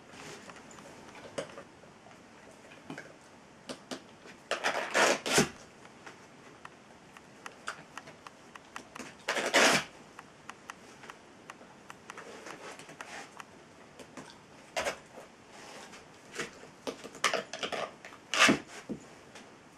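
A dog's claws scraping across a handheld scratch pad in several short bursts, each a second or less. Small clicks and taps come between the bursts.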